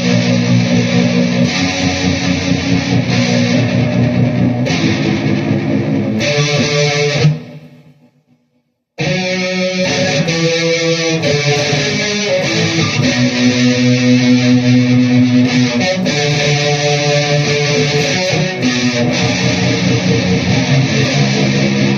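Electric guitar played through a Peavey VYPYR X2 amplifier, sounding held chords. The playing stops about seven seconds in, rings down, and starts again after a short silence.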